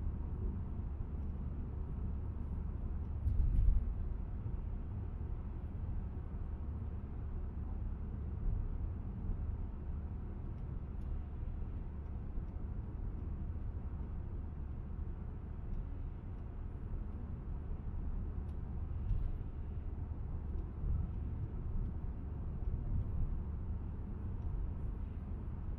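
Steady low rumble of a car driving, heard from inside the cabin, with one brief louder thump about three and a half seconds in and a few smaller bumps.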